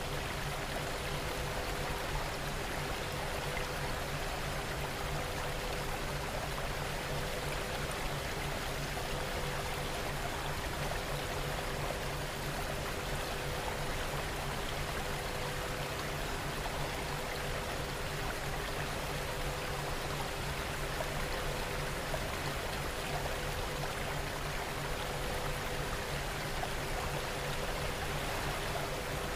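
Steady rain-ambience track, an even hiss of falling rain, with a steady low hum and faint high tones underneath, one of them pulsing on and off in an even rhythm.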